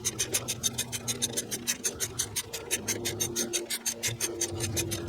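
Ratchet wrench clicking fast and evenly, about eight clicks a second, as the new idler pulley's bolt is run down.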